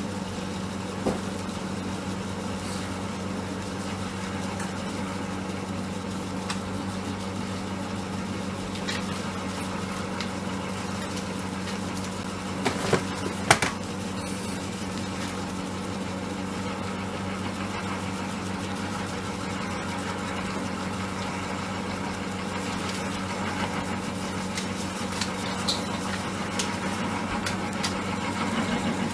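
Electric mochi pounding machine running steadily, its motor humming as the paddle kneads and pounds steamed glutinous rice into mochi, with scattered faint clicks and a short cluster of knocks a little under halfway through.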